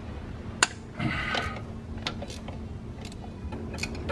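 Wrench working the injection pump's mounting bolts on a VW turbo diesel engine: a few scattered metallic clicks and taps as the bolts are loosened.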